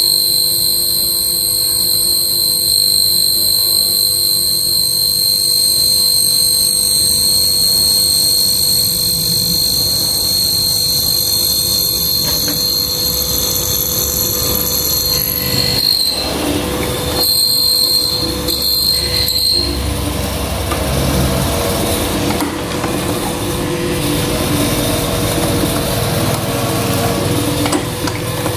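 Hollow-chisel mortising machine's electric motor running with a steady whine. From about two-thirds of the way in, a rougher grinding noise takes over as the chisel and auger bore into the wooden board, cutting hard enough to smoke the wood.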